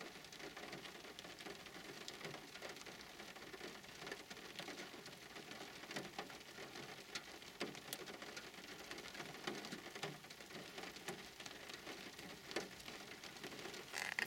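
Faint, steady rain falling in a thunderstorm, with scattered sharp drop hits.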